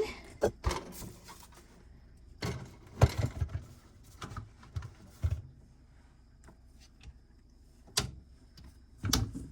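Scattered knocks and light clatters of kitchen cabinet doors and pull-out bins being handled.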